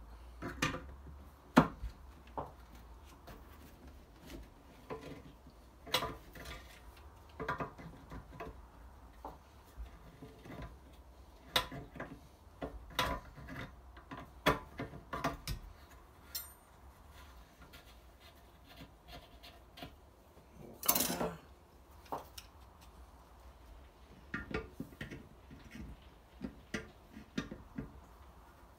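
Water-pump pliers working on brass tap fittings under a ceramic hand basin: irregular metallic clicks and knocks as the jaws grip, turn and shift on the brass, with one longer scraping rasp about two-thirds of the way through.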